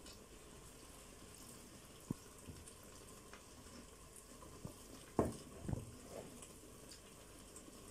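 A plastic spatula scooping creamy pasta from a stainless steel pot, with a soft knock against the pot about two seconds in and two more around five to six seconds in, over a faint steady simmer.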